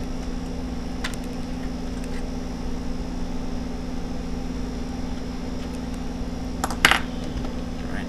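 Small clicks of a laptop's Wi-Fi card and its parts being handled as it is taken out: a few faint ones, then a sharper double click about seven seconds in, over a steady low hum.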